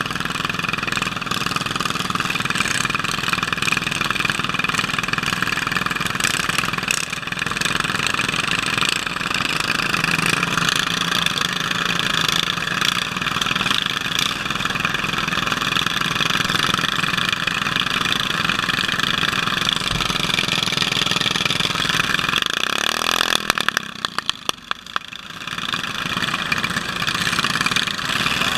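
Racing lawn tractor engines idling steadily at close range. About 23 seconds in the sound drops briefly, with a quick run of clicks, then returns to a steady idle.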